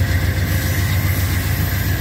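Amtrak passenger train passing close by: a steady low rumble from the diesel locomotive pulling away and the stainless-steel coaches rolling on the rails, with a faint steady whine over it.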